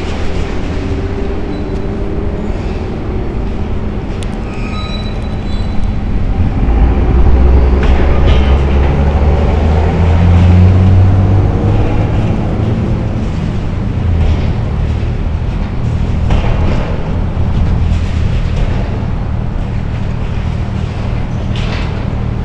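John Deere excavator's diesel engine running hard during demolition work, a steady low rumble that gets louder for several seconds in the middle, with a few brief knocks.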